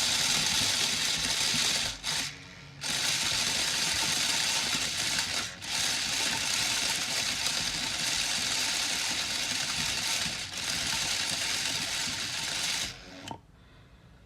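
Bodum Bistro electric blade coffee grinder's motor running at full speed. It cuts out for under a second about two seconds in, dips briefly twice more, and stops near the end. Its lid safety switch is fouled with coffee, which lets the motor run only when the lid is pressed just right.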